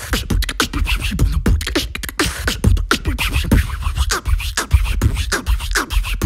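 Beatboxer performing a beat with the mouth: fast clicks and snare-like strikes over a constant deep vocal bass, with repeated falling pitch sweeps.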